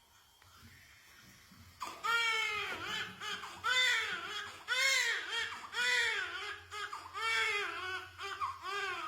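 Newborn baby crying in a run of short, arching wails, about one a second, starting about two seconds in.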